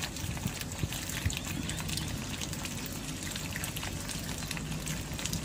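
Steady rushing background noise with a low hum, with a few faint clicks and rustles in the first second or so as the squash vines on the trellis are handled.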